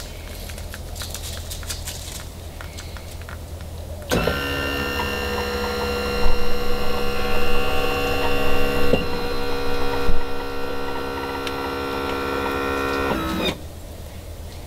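Power tilt and trim motor of a Yamaha F70 four-stroke outboard running steadily for about nine seconds as it lowers the engine from tilted up to straight down. It starts about four seconds in and cuts off near the end.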